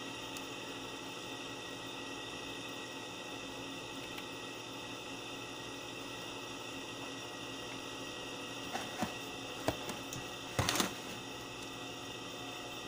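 Steady hiss and hum, with a few short clicks and rustles from bare power-lead wires being handled and twisted together about nine to ten seconds in, and a louder brief cluster of clicks just before eleven seconds.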